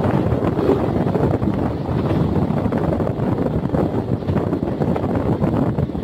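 Wind buffeting the microphone over the steady rumble of a passenger train's coaches running at speed on the rails, heard from an open door.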